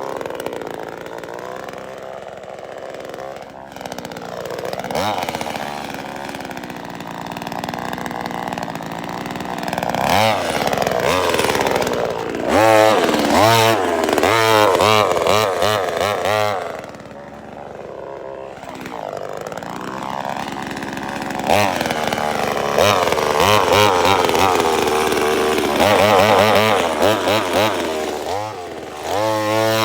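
Gas chainsaw engine running and being revved again and again, its pitch rising and falling with each squeeze of the throttle and dropping back to a lower idle for a couple of seconds midway.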